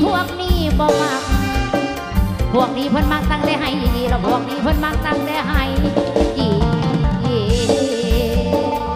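Mor lam sing music: a steady, quick drum-kit beat under melody lines full of sliding, bending notes.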